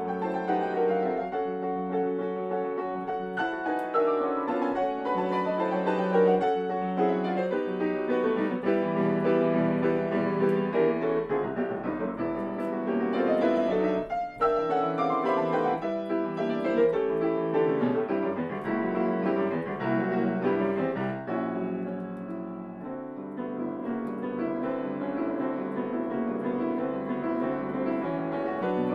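Grand piano played solo in a classical piece, with dense, continuous runs and chords that ease off to a softer passage about three quarters of the way through before building again.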